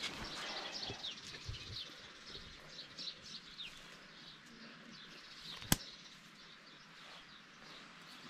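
Small birds chirping in many quick, short, falling calls, with one sharp click about five and a half seconds in.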